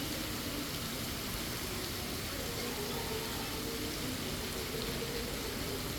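Steady rushing of running water, with a faint murmur of distant voices.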